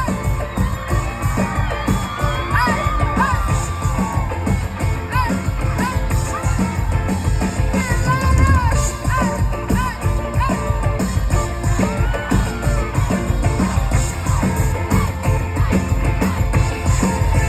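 Live pop-rock band music played loud through a concert PA, recorded from the crowd, with a strong bass and drums and scattered crowd whoops and singing along.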